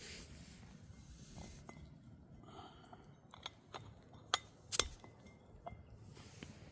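Handling noise: scattered light clicks and knocks of small hard objects, the two loudest about half a second apart a little past the middle.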